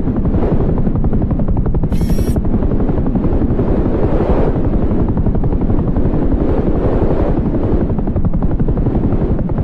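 A machine running loudly and steadily with a fast, even throbbing beat. A brief high squeal comes about two seconds in.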